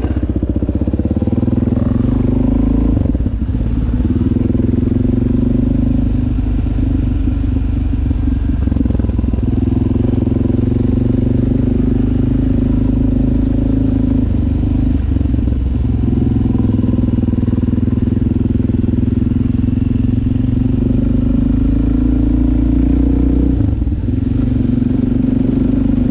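Dirt bike engine running steadily while riding, with its pitch dipping briefly a few times as the throttle eases and comes back.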